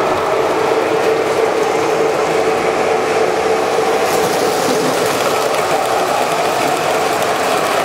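Several O27 model trains running at once on three-rail tubular track: the steady whirring rumble of metal wheels on the rails and the locomotives' geared motors, with fine rapid clicking throughout.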